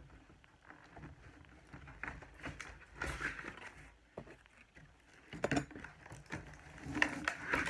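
Cardboard toy box and its packaging being handled and pulled at: irregular rustles, scrapes and taps, with a few louder knocks about five and a half and seven seconds in.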